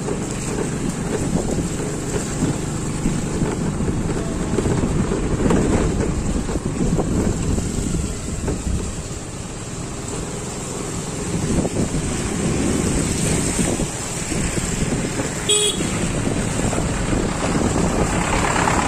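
Steady road traffic and vehicle engines running, with one short vehicle horn beep near the end.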